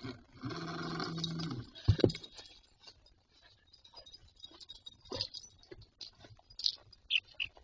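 A chicken gives one drawn-out low call, followed about two seconds in by two loud knocks and then scattered taps and clicks as the hens bump and peck at the camera close to its microphone.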